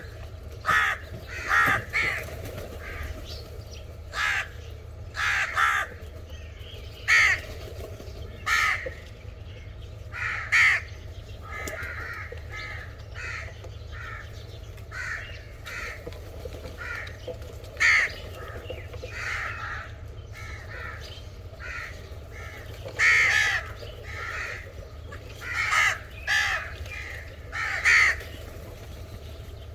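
Crows cawing repeatedly, short harsh calls coming about every one to two seconds, some in quick pairs, over a steady low hum.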